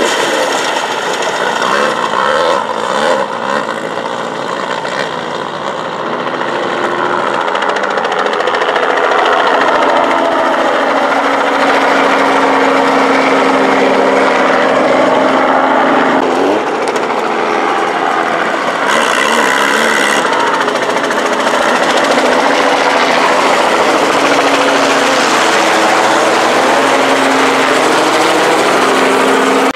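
An off-road race buggy's engine runs hard as it speeds past, then a low-flying helicopter's rotor chop takes over, loud and steady, its tone sweeping as it passes overhead.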